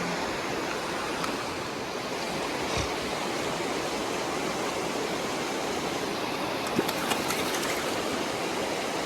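River water rushing steadily in the current, with a few faint clicks about seven seconds in.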